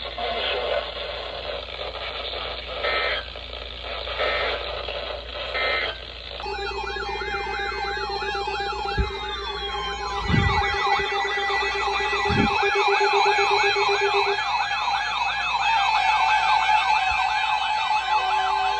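Electronic siren: a fast up-and-down yelping wail over steady tones, with a few low booms. It starts abruptly about six seconds in, after a stretch of muffled, narrow-band radio audio.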